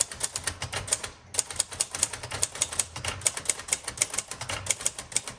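1957 Royal Quiet Deluxe manual portable typewriter being typed on fast: a steady run of sharp keystrokes, about eight a second, with a brief pause about a second in.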